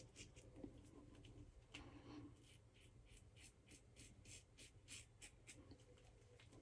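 Faint, short scraping strokes of a double-edge safety razor, a Phoenix Artisan Accoutrements Original DOC (double open comb), buffing over the lathered face, a few strokes a second.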